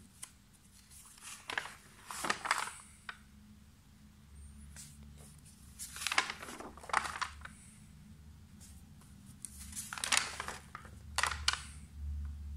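Pages of an old paper sticker album being turned by hand, rustling three times: about two, six and ten seconds in.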